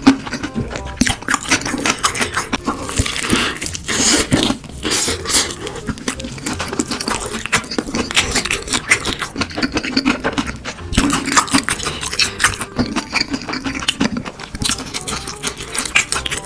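Close-miked crunching and chewing of crispy fried chicken, a dense, irregular run of crackles and crunches.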